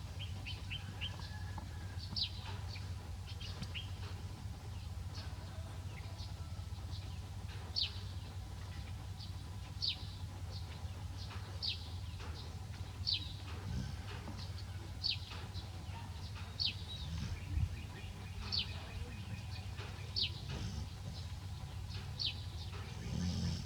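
A bird chirping over and over, one short, quickly falling chirp about every two seconds, over a steady low hum.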